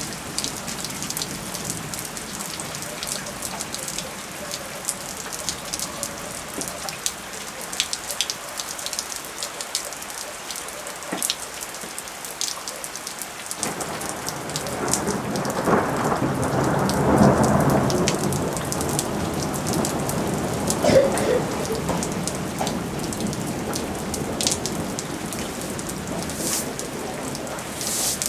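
Rain falling in a thunderstorm, with many drops ticking close by over a steady hiss. About halfway through, a deeper rumble sets in abruptly and swells, loudest twice.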